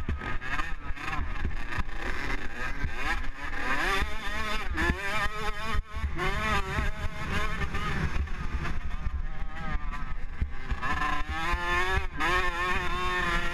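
Motocross dirt bike engine heard up close from on board, its pitch climbing and falling again and again as the rider works the throttle and gears, with a brief drop about six seconds in. A low rumble of wind and the jolts of the rough track run underneath.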